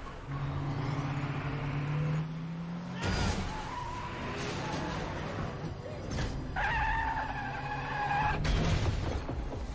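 Film sound effects of street traffic: a car engine running low and steady, then a louder noisy rush about three seconds in, and a box truck skidding with a squeal of tyres lasting about two seconds near the end.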